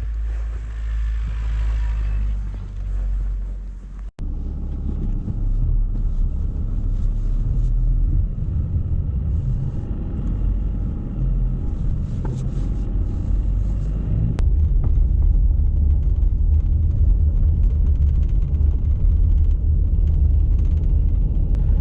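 Car driving on a snow-covered road: a steady low rumble of engine and tyres. It breaks off abruptly about four seconds in and then resumes louder and rougher, growing a little towards the end.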